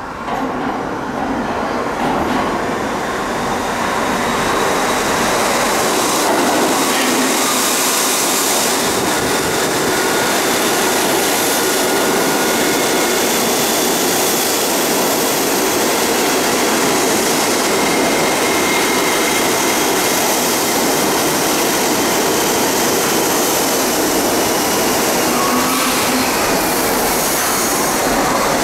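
An R68 subway train pulling into an underground station. The din of its wheels on the rails builds over the first few seconds as it approaches, then holds steady as the cars run past along the platform, with faint high-pitched squeals running through it.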